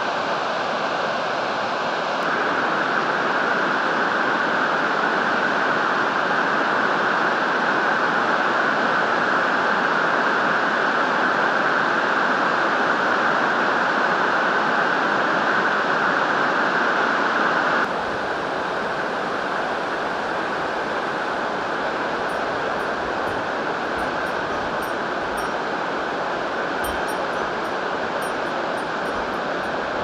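Steady rush of water from the mountain river and waterfall in the gorge. It gets a little louder about two seconds in and drops back about eighteen seconds in, and faint high ticks or chirps come in during the last third.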